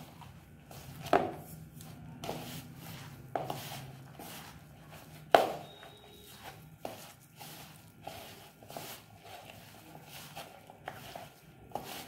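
A hand squeezing and kneading a moist kebab mixture of grated beetroot, boiled potato and gram flour in a plastic bowl: irregular soft squelches and thuds, with one sharper knock about five seconds in.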